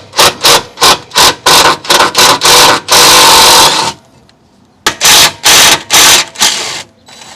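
Power tool running in short, loud trigger pulses, about three a second, then one longer run of about a second, a brief pause, and four more pulses: loosening the 13 mm bolts of an exhaust hanger bracket.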